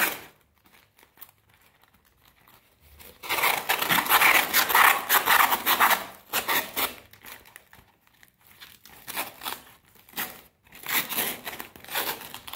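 Paper and aluminium foil crinkling and rustling as hands wrap white paper around a foil-covered sculpture armature: a loud stretch of crinkling a few seconds in, then shorter bursts of rustling near the end.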